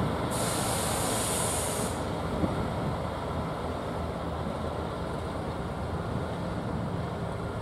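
Convoy of Class 70 diesel locomotives running light at low speed, their GE PowerHaul V16 engines making a steady low rumble. A high hiss lasts about a second and a half near the start.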